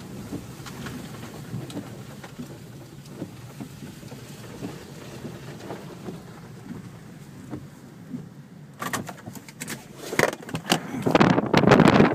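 Low vehicle running noise with light rain, then from about nine seconds in, strong wind gusts buffeting the microphone, growing loud near the end.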